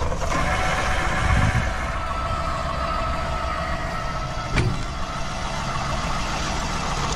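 A motor running steadily with a low rumble and a faint whine, with a single sharp click about four and a half seconds in.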